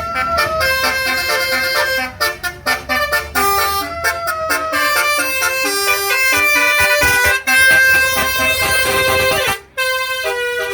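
Basuri multi-tone telolet horn playing a quick melody, several horn tones sounding together and stepping from note to note a few times a second, with a brief break near the end.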